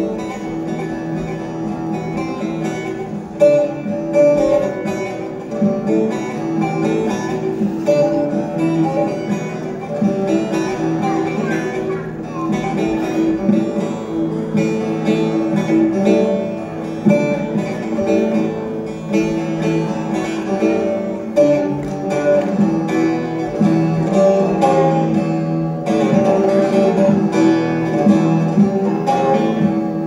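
Bağlama (Turkish long-necked lute) played solo: a quick plucked melody over steady ringing drone strings, getting louder about three and a half seconds in.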